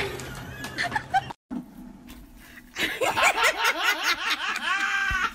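A person laughing hard in quick repeated bursts, starting about three seconds in. Before that there are only a few faint clicks and rustles.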